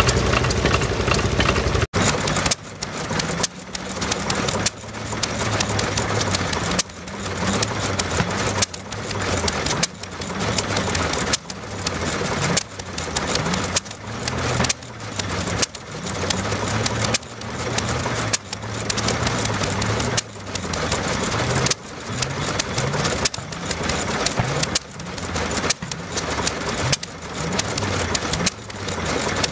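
Ruston & Hornsby horizontal diesel stationary engine running slowly, a steady rhythmic beat whose loudness builds and drops back about every two seconds. The first two seconds hold a smaller engine running steadily before it cuts off abruptly.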